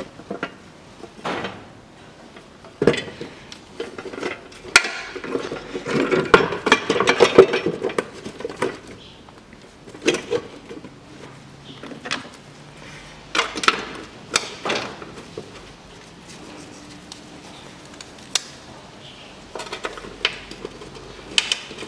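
Scattered metallic clinks and knocks of hand tools and parts as a bolt is tightened and a box is fitted in a car's engine bay. About five seconds in there is a busier stretch of rapid clicking.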